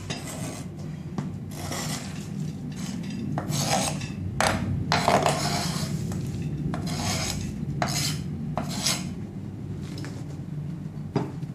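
A knife blade and hand scraping chopped walnuts across a wooden cutting board: a run of irregular rasping strokes, roughly one or two a second. A steady low hum runs underneath.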